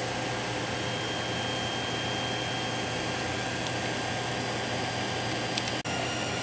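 Creality CR-10 3D printer running a print, laying down its first layer of PLA: a steady whir from its cooling fans with a few faint steady tones. A click and a brief dropout near the end.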